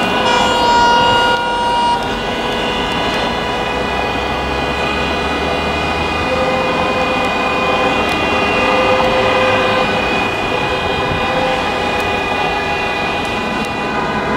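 Many car horns honking at once, a long overlapping chorus of held notes at different pitches over traffic noise, from drivers protesting at a motorway toll booth.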